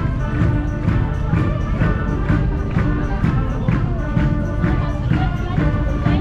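Music with a steady beat, about two beats a second, over sustained pitched tones.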